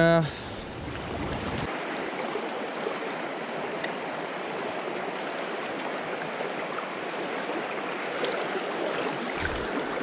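Shallow, rocky river current rushing steadily.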